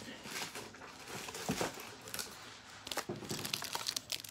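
Paper and plastic gift wrapping crinkling and rustling as it is handled, with a soft knock about a second and a half in and a quick run of crinkles near the end.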